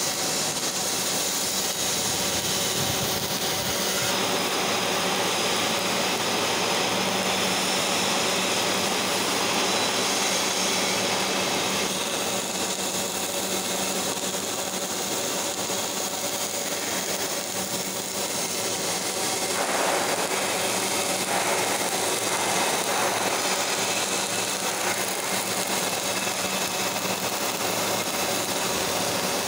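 Robotic MIG welding on steel pipe: the arc crackles and hisses steadily, with the sound changing character a few times.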